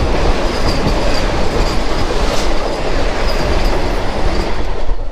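Loud, steady rushing rail noise as a Vande Bharat express train and a conventional Indian Railways coach run past each other on adjacent tracks at close range, with a few sharp clicks of wheels over rail joints.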